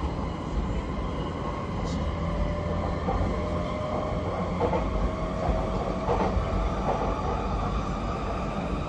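JR East E231-0 series commuter train running, heard from inside the passenger car: a steady rumble of the running gear with a faint steady whine and a few faint knocks.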